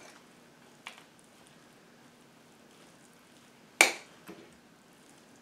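A kitchen utensil clacking against a dish while cornbread dressing is mixed: a faint click about a second in, a sharp loud clack near four seconds, and a softer one just after it.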